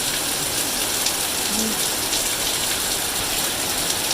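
Heavy rain pouring down in a steady hiss, a monsoon downpour with faint scattered drips and taps.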